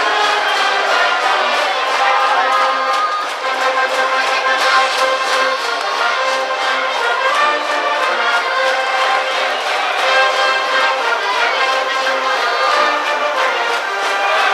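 High-school brass band playing a baseball cheering tune: held brass notes over a steady drum beat.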